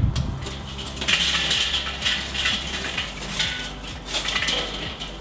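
Lit charcoal pouring out of a metal chimney starter into a kettle barbecue: a rattling clatter of tumbling coals with sharp metallic clinks, starting about a second in and coming in waves.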